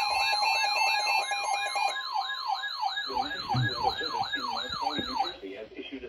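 Weather alert radios sounding their alarms for a severe thunderstorm warning: a warbling siren tone sweeping up and down about three times a second, over steady and pulsing beep tones that stop about two seconds in. The siren cuts off about five seconds in, leaving a broadcast voice.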